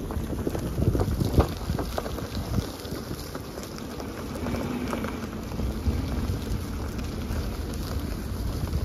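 Wind buffeting the microphone: a low, gusting rumble with scattered knocks and bumps.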